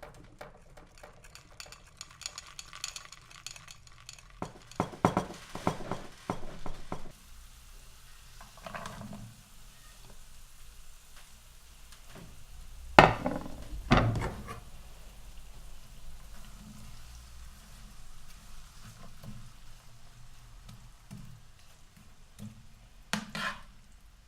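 Food being stir-fried in a pan with a faint sizzle, a utensil scraping and clinking against the pan in irregular bursts. About halfway through come two loud knocks a second apart.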